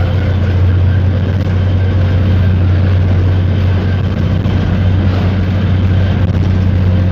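Steady, loud running noise inside the cab of a Henschel diesel locomotive at speed: a constant low drone from the engine under an even rush of wheel and track noise.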